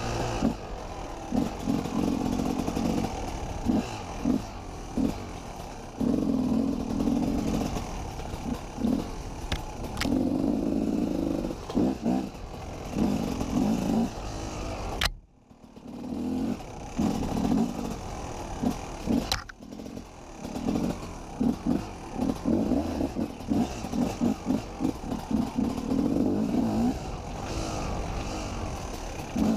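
KTM 250 EXC two-stroke enduro motorcycle engine being ridden off-road, the throttle opened and closed again and again so the engine note swells and falls every second or two, with rattling from the bike over the rough trail. The sound cuts out sharply for a moment about halfway through.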